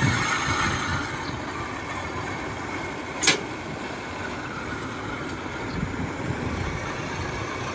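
Engine of a tracked rice-hauling cart running as the cart drives off down into the field, easing off in the first second and then steady, with one sharp click about three seconds in.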